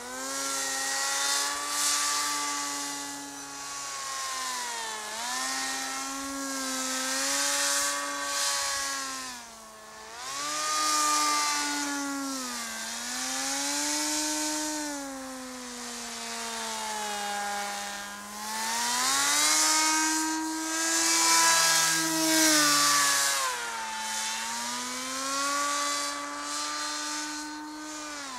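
Electric motor and propeller of a radio-controlled paramotor buzzing in flight. Its pitch repeatedly dips and rises again, with the loudness swelling and fading along with it.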